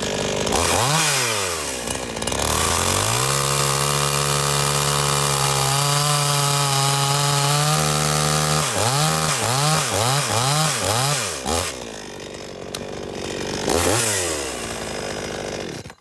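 Two-stroke chainsaw, long unused, revved up and held at high revs with an unsteady, wavering pitch. It then blips the throttle five or six times in quick succession, drops back to idle, revs once more and cuts off suddenly at the end. It is bogging, which the owner puts down to the carburetor needing adjustment after sitting so long.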